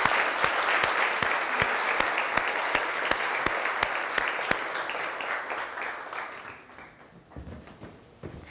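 Studio audience applauding, the clapping thinning and fading out about seven seconds in.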